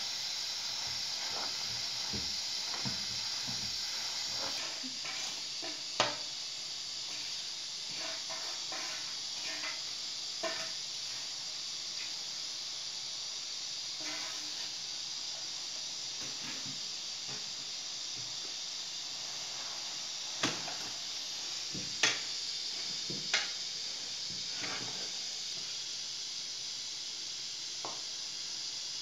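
Steady hiss of a pot of chopped greens cooking over a gas burner. A metal spatula and ladle scrape in the pot and clink sharply against its rim several times, the loudest clinks a little past the middle.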